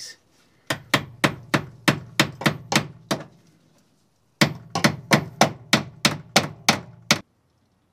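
Hammer tapping a flathead screwdriver to drive the metal lock ring of a 2001 Chevy Silverado's fuel pump module into place on the tank: two runs of quick metallic taps, about three a second, with a pause of about a second between them.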